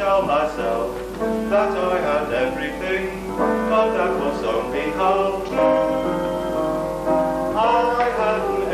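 A man singing a slow melody with long held notes, as in a stage musical number, recorded on the magnetic sound stripe of amateur single 8mm film.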